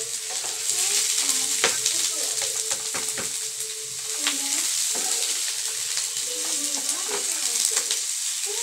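Sliced onions and garlic sizzling in a non-stick frying pan with only a little oil: a steady hiss broken by frequent clicks and scrapes as a utensil stirs them against the pan.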